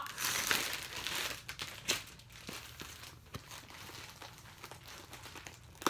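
Plastic poly mailer bag crinkling as it is worked open and the box is pulled out of it, loudest for the first second and a half, then fainter rustles and small clicks, with a sharp tap near the end.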